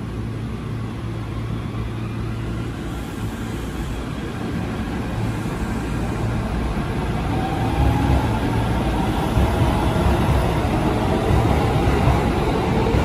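Shin-Keisei 8900 series electric train pulling away from the platform. There is a low rumble of wheels on rail, and the traction motors' whine rises in pitch as it gathers speed, getting louder over the second half.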